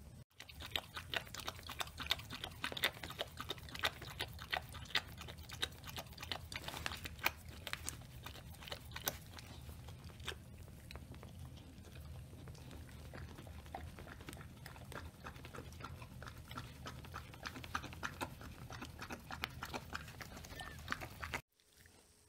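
Newborn puppies suckling at their mother: a dense run of small smacking, sucking clicks that thins out in the second half and stops abruptly near the end.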